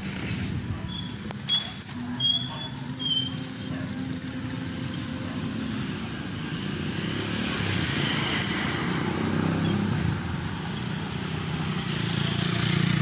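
Street traffic: a motor vehicle's engine running and passing, its rumble swelling midway. A short high chirp repeats about twice a second throughout.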